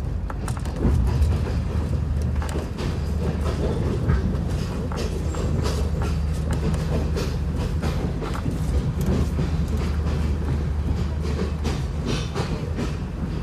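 Diesel passenger train heard from inside the coach: a steady low drone of the running train with wheels clicking irregularly over rail joints and points.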